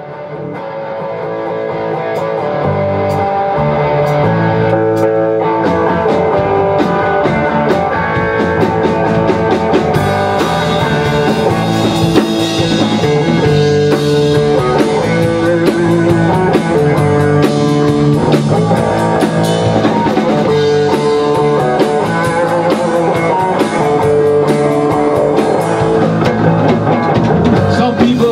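Rock band playing live without vocals: electric guitar, bass guitar and drum kit with steady cymbal strokes. The music starts just after a short break and gets louder over the first few seconds.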